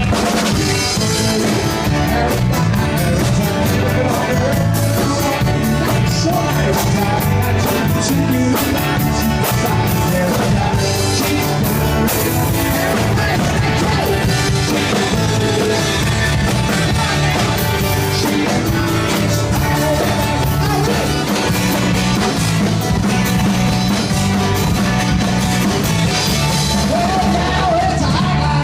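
A live rock band playing a song, with a singer over a drum kit.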